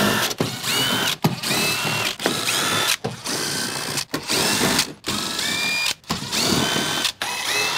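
Impact gun with a 10 mm socket running out the fender-liner screws one after another: about eight short bursts of motor whine, roughly one a second, each rising quickly in pitch and then holding steady.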